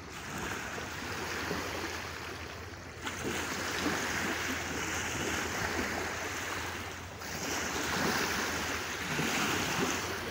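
Small river waves lapping and washing onto a sandy bank, with some wind buffeting the microphone.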